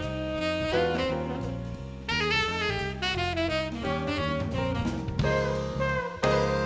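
Jazz background music, with a saxophone playing the melody over a drum kit and low bass notes.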